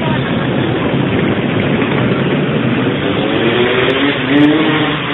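Loud motorcycle engine noise, with one engine rising in pitch as it revs up in the second half.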